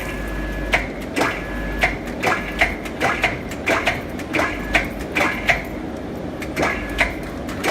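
Electric bar-twisting machine running as it turns a forge-heated square bar through a full turn, a steady low motor hum with repeated sharp clicks and knocks; the hum stops near the end.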